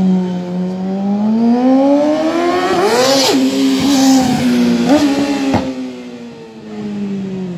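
2007 Yamaha R6 race bike's 600 cc inline-four engine at high revs, its note rising as it accelerates toward and past the microphone about three seconds in. Short breaks in the note near four and five seconds, then it fades as the bike pulls away.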